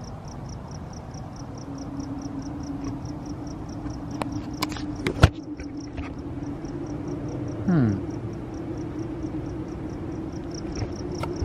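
Crickets chirping in a fast, even pulse of about four or five chirps a second, over a low steady hum that comes in about two seconds in. About four to five seconds in there are a few sharp clicks and one loud knock, and just before eight seconds a short sound glides quickly downward in pitch.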